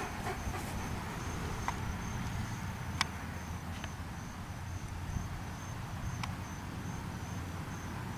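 A cricket chirping steadily, a thin high chirp repeating about three times a second, over a low steady rumble with a few faint clicks.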